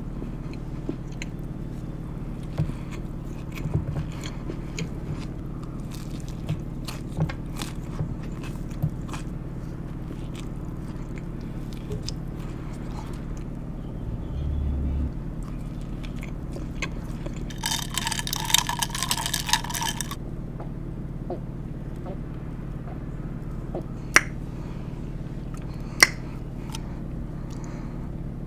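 Close-miked biting and chewing of elote chicken tacos, with scattered mouth clicks and crunches over a steady low hum. A brief noisy burst comes about two-thirds of the way through, and two sharp clicks near the end.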